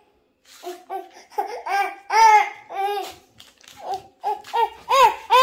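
Toddler laughing, a run of short repeated laughs that starts about half a second in.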